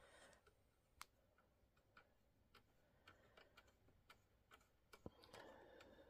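Faint, irregular clicks and ticks of a screwdriver turning out a tight, thread-locked screw from a computer's plastic back cover, with a little rustle of the hand near the end.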